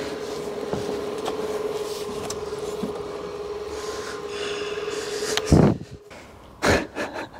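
Rear twin-tailpipe silencer section of a BMW E39's exhaust being worked free under the car and lifted away: metal rubbing and scraping, then a loud thump about five and a half seconds in and another about a second later. A steady hum runs underneath until the first thump.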